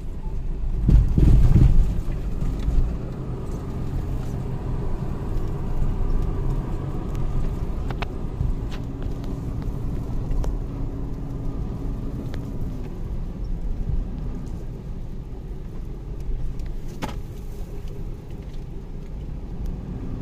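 SUV driving off-road: a steady engine and tyre rumble with a low drone, a louder surge about a second in, and a few light knocks.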